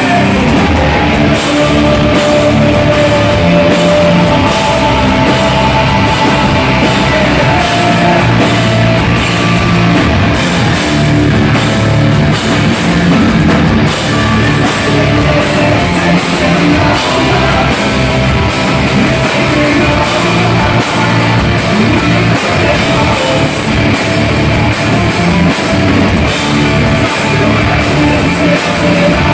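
Heavy rock music with a drum kit driving a steady beat.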